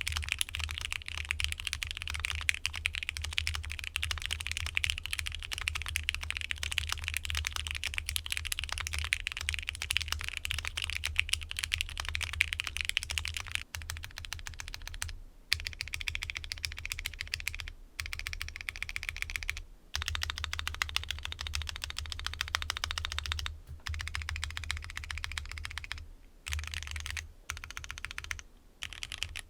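Fast, continuous typing on a Mode Envoy mechanical keyboard (aluminium case, FR4 plate) fitted with Keebmonkey Iceberg linear switches re-lubed with 205g0. The keystrokes make a deep, broad sound, with a few brief pauses in the second half. A low steady hum runs underneath.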